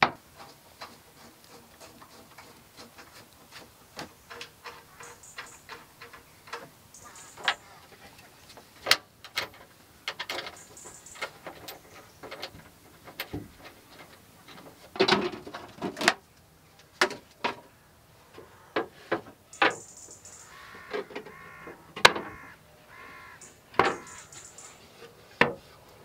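Wooden lids, a plastic insert and a plywood seat being handled and fitted into a wooden dry separating toilet box: an irregular run of wooden knocks, clicks and taps, the sharpest knock a little past the middle. A crow caws a few times in the background near the end.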